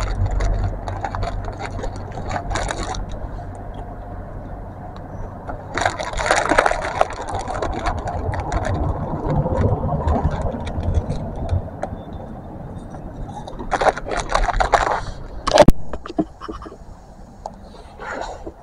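Train at a station platform: a low engine rumble that fades after the first few seconds, two longer bursts of noise about six and fourteen seconds in, and a single sharp clank near the end.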